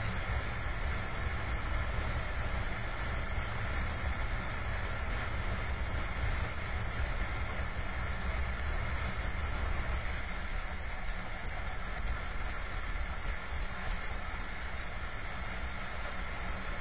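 Benelli RFS 150i motorcycle ridden flat out near its top speed: its single-cylinder engine running steadily at high revs under a heavy rush of wind on the bike-mounted microphone.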